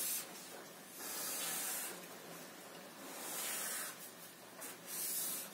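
Felt-tip marker drawing long straight lines on paper: a hiss on each stroke, about four strokes of roughly a second each with short pauses between.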